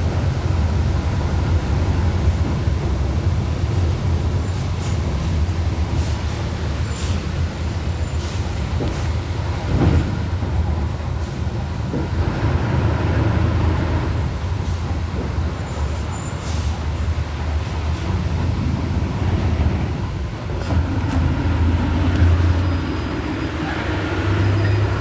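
Volkswagen Volksbus 17.230 OD bus under way, heard from on board: its diesel engine running at low revs with a growling gearbox, and short high hisses and rattles now and then. Near the end a whine rises in pitch as the bus pulls away.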